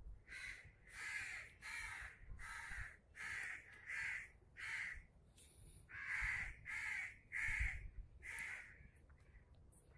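Crows cawing in a quick, even run of about a dozen caws, tailing off near the end.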